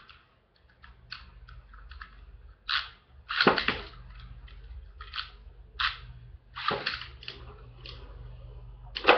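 Beyblade spinning tops whirring faintly on a plastic stadium, broken by a series of sharp plastic clacks; the loudest come about three and a half and about seven seconds in.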